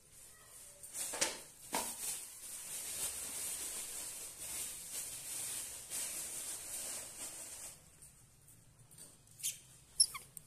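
Cloth rustling as clothes are handled and folded, a hissy rustle lasting several seconds. A couple of sharp taps come near the end.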